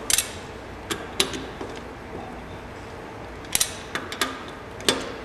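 Scattered sharp metal clicks and clinks as a socket and extension on a beam-type torque wrench are fitted onto and turned on a car's wheel nuts. There are about seven of them at uneven spacing, two in quick succession midway.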